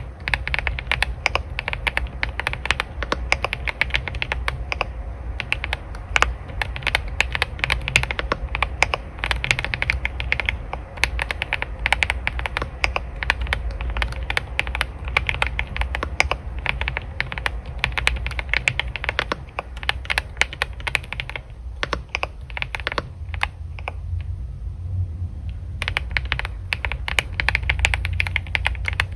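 Computer keyboard typing in quick, continuous runs of keystrokes over a steady low hum. Near the end the typing thins to a few scattered keystrokes for a few seconds, then picks up again.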